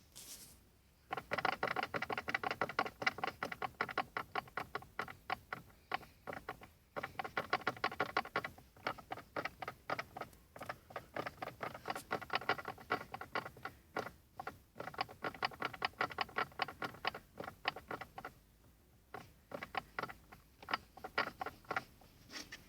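Daewoo Lanos manual gearbox knocking when in gear: a rapid, even run of sharp knocks, several a second, in long stretches with short breaks. The knock is the gearbox fault being shown.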